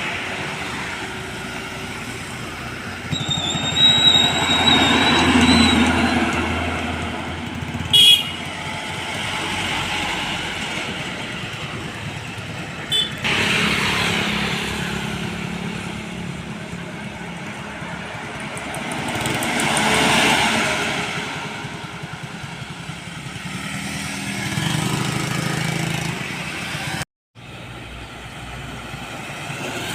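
Road traffic with motor vehicles passing one after another, swelling as each goes by, twice most strongly. A brief high thin tone sounds a few seconds in, with sharp clicks near eight and thirteen seconds.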